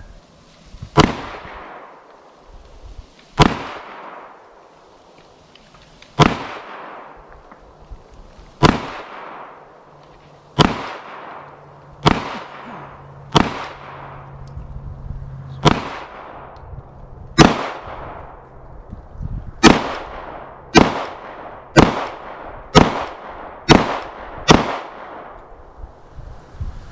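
About fifteen shots from a Glock 19 Gen 4 9mm pistol, each with a short echoing tail. They are fired slowly at first, one every two seconds or so, then faster, about one a second, near the end.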